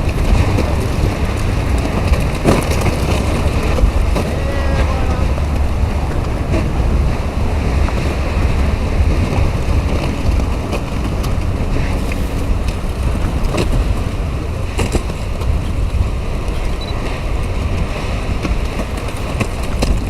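Wind buffeting the microphone: a heavy, fluctuating low rumble with scattered clicks and crackles.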